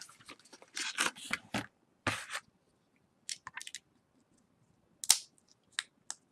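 Short clicks and light rustles of small electronic parts and wires being handled: twisted LED leads and a 9-volt battery clip. Two sharper clicks come near the end.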